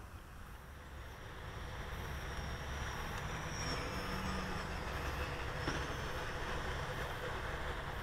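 Electric whine of the Hobby King Catalina model seaplane's twin brushless motors and propellers as it flies low over the water. It grows louder over the first few seconds and then holds steady, with wind rumbling on the microphone underneath.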